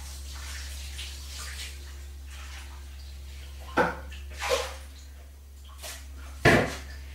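A mixing bowl being washed by hand at a sink: water splashing, with three sudden clatters of the bowl against the sink, the loudest near the end.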